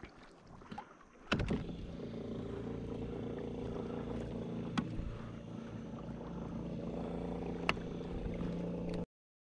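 Steady noise of a kayak out on open water with a low hum, broken by two sharp knocks about three seconds apart. It comes in abruptly after a quieter first second and cuts off suddenly near the end.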